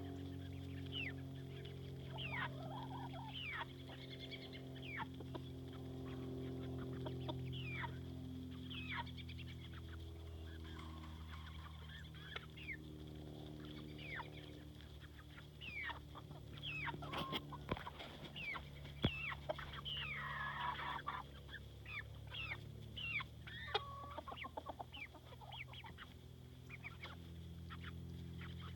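Chickens calling: many short, high chirps, each falling in pitch, busier past the middle, over a low steady hum.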